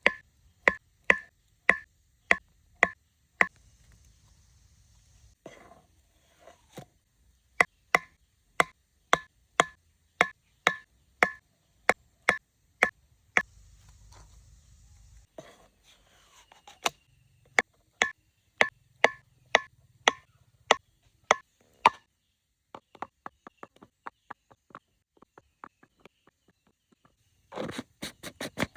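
Repeated sharp knocks, about two a second, in several runs, each strike with a short ringing tone. Near the end, lighter and quicker taps follow.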